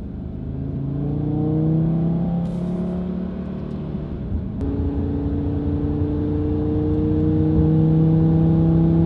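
APR Stage 1-tuned Audi RS3's turbocharged five-cylinder engine pulling under acceleration, heard from inside the cabin. Its pitch climbs steadily, breaks off and drops about four and a half seconds in, then climbs again, louder near the end.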